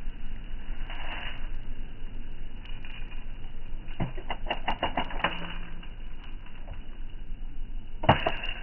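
Daisy Red Ryder lever-action BB gun (spring-piston air rifle): a quick run of metallic clicks as the lever is worked, about four to five and a half seconds in, then a single sharp shot near the end.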